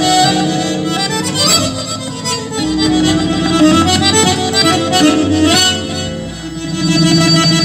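Garmon, the Azerbaijani button accordion, playing a melody in quick runs of notes, accompanied by an electronic keyboard. The music dips in loudness for a moment about six seconds in.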